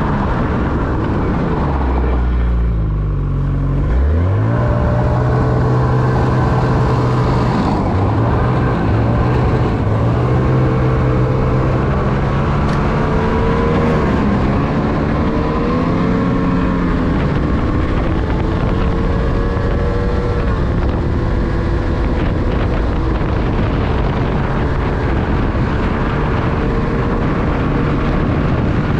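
Ski-Doo snowmobile engine running on the move. The revs drop about two seconds in, pick up again around four seconds, then rise and fall several times with the throttle.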